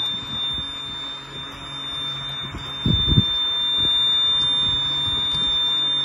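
Cab warning beeper of a Bobcat B900 backhoe loader sounding one steady high-pitched tone with the key on and the engine not yet started. The engine is not to be started until the beep stops. A short low sound comes about three seconds in.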